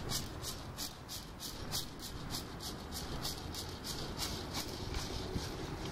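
A hand rattle shaken in a steady rhythm, about three shakes a second, dying away near the end.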